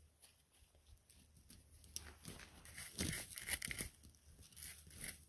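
Dry forest-floor litter and soil rustling and crackling as it is disturbed. It is faint at first, then a run of irregular scratches and crunches from about two seconds in.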